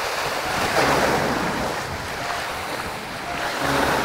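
Wind buffeting the microphone over the wash of sea water, swelling about a second in and again near the end.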